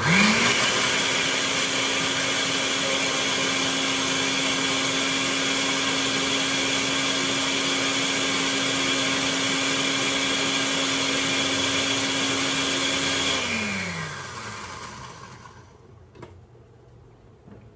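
Countertop blender switched on, its motor rising quickly to speed and running steadily while it purées a chile de árbol salsa, then switched off about thirteen seconds in and spinning down with a falling whine.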